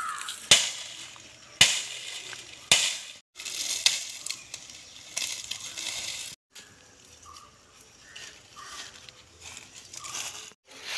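Dry firewood sticks and dried coconut fronds crackling and snapping as they are handled and dragged. There are three sharp cracks in the first three seconds, then dense crackling, then quieter rustling after about six seconds.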